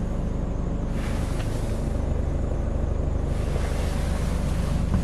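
Scania R410's 13-litre inline-six diesel idling steadily, heard from inside the cab as an even low hum.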